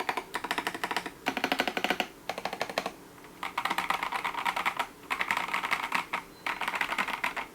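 Fast typing on an 8BitDo Retro Mechanical Keyboard with PBT keycaps on an aluminium plate: rapid keystroke clacks in bursts of about a second, separated by short pauses.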